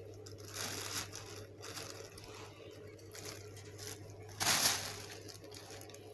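Thin plastic bag rustling and crinkling in irregular bursts as cats shift about inside it and paw at it, with the loudest rustle about four and a half seconds in.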